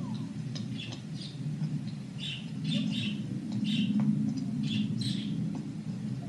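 Small birds chirping in short, irregular calls over a steady low rumble, heard from an old home-video soundtrack played through a TV's speaker.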